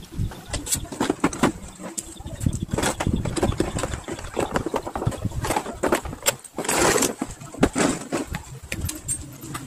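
Irregular clicks, knocks and rustles of a black plastic tool case being opened and a corded rotary tool with a flexible shaft being handled and lifted out, with a louder rustling scrape about seven seconds in.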